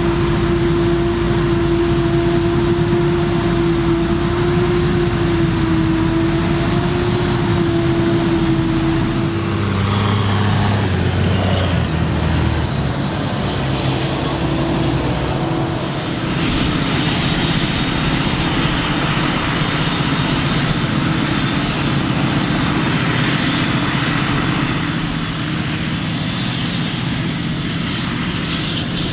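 Claas Jaguar 940 forage harvester and a tractor pulling a silage trailer, running steadily together while chopping maize. A strong steady whine stands out for the first third, then stops. After that the engine tones shift, and a louder hiss sets in a little past halfway.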